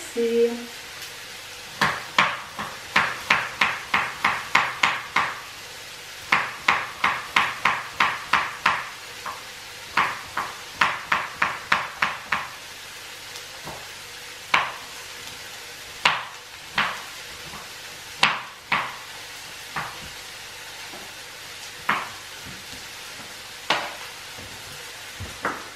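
Kitchen knife chopping carrot on a cutting board: quick runs of sharp knocks, about four a second, in several bursts, then slower, scattered single cuts in the second half.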